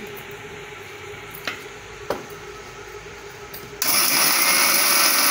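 Two light clicks as the steel jar and lid of an electric mixer grinder are fitted and pressed down, then a little under four seconds in the mixer grinder switches on suddenly and runs at full speed, grinding raw black mustard seeds.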